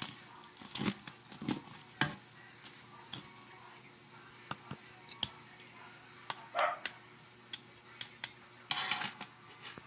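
Kitchen utensils knocking and scraping against cookware at irregular intervals, with a faint sizzle of frying underneath.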